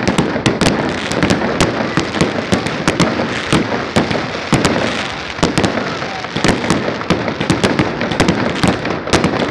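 Aerial fireworks bursting overhead in a dense barrage: sharp cracks and bangs, irregular and several a second, over a continuous haze of blasts.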